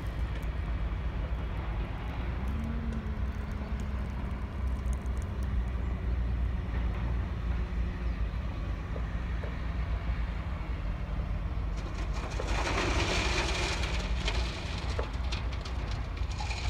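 Diesel engines running steadily as a low rumble, with a steady hum coming in a few seconds in. A loud hissing rush of noise follows about twelve seconds in and lasts a couple of seconds.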